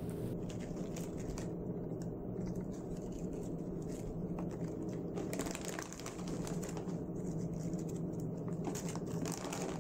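Faint crinkling of a plastic snack bag and dry emping (melinjo) crackers rustling as they are handled, as scattered light clicks over a steady low hum.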